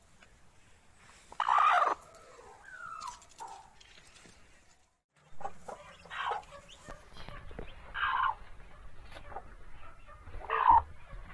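Chickens calling: a loud call about a second and a half in, a shorter rising and falling call soon after, then short calls every couple of seconds through the second half.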